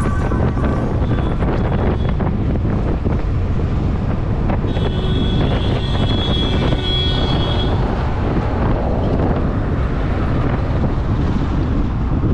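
Wind noise buffeting the microphone on a moving Suzuki Access scooter, a steady low rumble with the scooter's running and road noise under it. A high steady tone sounds for about three seconds around the middle.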